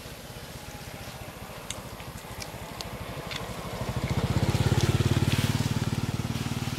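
Motorcycle engine running close by as it passes, growing louder to a peak about four seconds in, then easing off.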